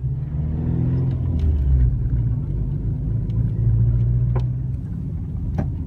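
Car engine and road rumble heard from inside the cabin while driving. The engine rises in pitch as the car speeds up about a second in. Two sharp clicks come near the end.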